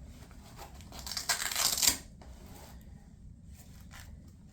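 Hook-and-loop (Velcro) straps of a back brace ripping open and being pressed shut as the brace is tightened, in one loud rasping burst about a second in, followed by faint rustling.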